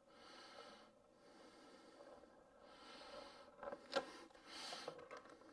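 Faint scraping of a spur embedder run along a beehive frame's horizontal wires, pressing them into beeswax foundation, with a few small clicks about four seconds in and a short breathy hiss just after.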